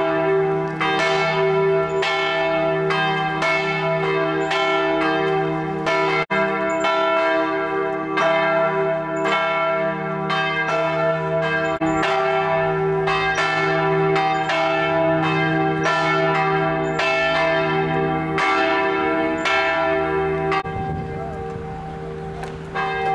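Church bells ringing, struck again and again with several pitches ringing on over one another; the ringing stops about 20 seconds in and dies away.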